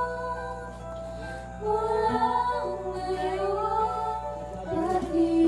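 Background music: a slow song with a singing voice holding long notes.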